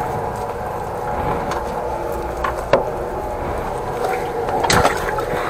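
A 13-horsepower engine-driven high-pressure sewer jetter running steadily with an even hum. A sharp knock comes a little under three seconds in, and a few more clacks near the end.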